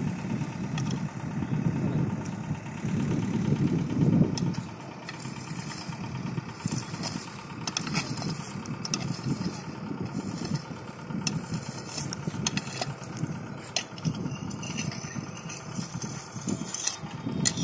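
Bent galvanised-iron pipe scraping along the flangeway of a level-crossing check rail in short, uneven strokes, clearing out grit and dirt. A low, uneven rumble runs underneath and is loudest in the first four seconds.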